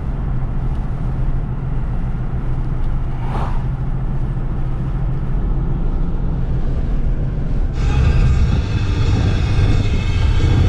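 Road and engine noise inside a moving Nissan's cabin: a steady low rumble. Music comes in about eight seconds in.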